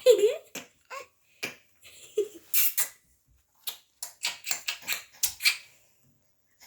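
A baby's laugh trailing off at the start, then scattered short clicks and breathy sounds, with one more brief voiced squeak about two seconds in.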